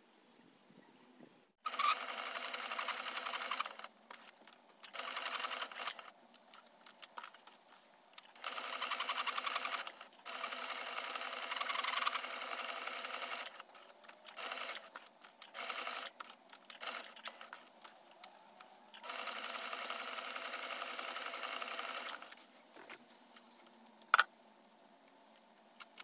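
Electric sewing machine stitching in several short runs of one to three seconds, stopping and starting between them. A single sharp click comes near the end.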